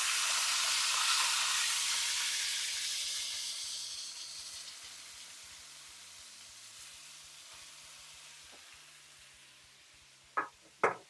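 Buttermilk-marinated chicken breasts sizzling in hot olive oil in a wok as they go in, loud at first and dying down steadily over the next few seconds.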